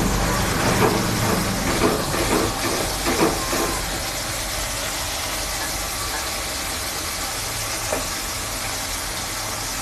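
Spiced onion masala frying in oil in a pan, sizzling with a steady hiss. A spatula scrapes and stirs through it several times in the first few seconds.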